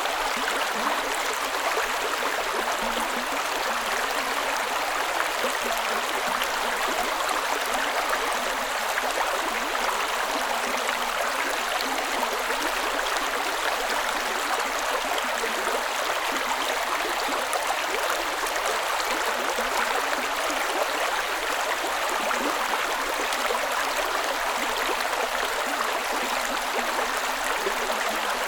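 Creek water running steadily over rocks, an even, unbroken rushing with a light gurgle.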